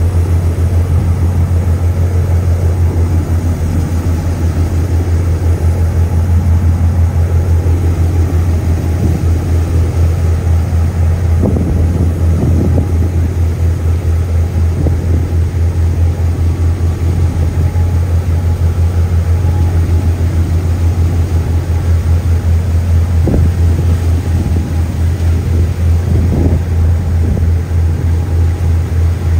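A ship's engines running while the vessel is under way at sea, heard from on board as a steady low drone. A rushing hiss of wind and water lies over it, with a few soft thumps.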